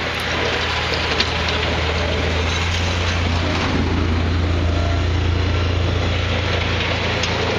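Snowplow dump truck approaching with its front plow blade down, the engine running and the blade scraping and pushing snow along the road. The low engine sound grows louder as the truck nears.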